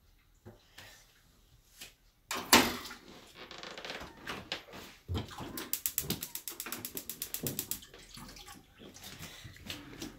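Kitchen work sounds: quiet handling with a few clicks, then about two seconds in water starts splashing and running, with a fast even run of tapping about halfway through.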